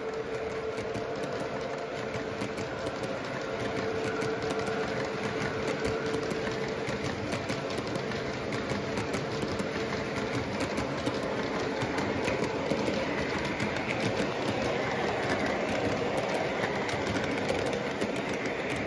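MTH model freight train rolling past, its hopper cars' wheels clicking over the track in a quick, steady clatter that grows a little louder later on. A steady hum from the train fades out about halfway through.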